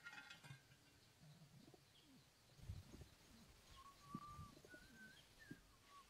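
Faint low cooing of a domestic pigeon, in several short strokes, with a brief rattle right at the start. Thin high whistled bird notes come in during the second half.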